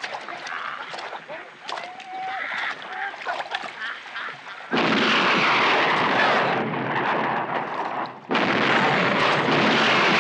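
Film soundtrack: men's shouts and whoops over splashing in shallow water. About five seconds in, a sudden loud, steady rush of splashing and commotion takes over. It cuts out briefly near eight seconds and comes straight back.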